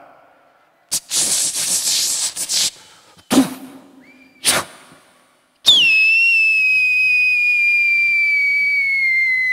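Mock firework: a fizzing hiss like a burning fuse, two short puffs, then a long loud whistle that starts about halfway through and slowly falls in pitch, standing in for a three-branch 'palm' firecracker going off.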